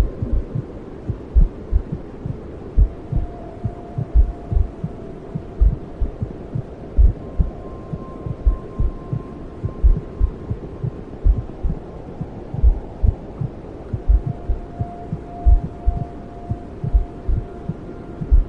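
Heartbeat in a womb-sound soundscape: a double lub-dub thump about every second and a half over a steady low whooshing noise. Faint soft tones fade in and out above it.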